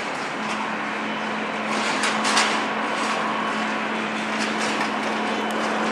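Airbus A320-232's IAE V2500 turbofan engines running at taxi power: a steady rush of jet noise with a constant low hum. A couple of faint knocks come about two seconds in.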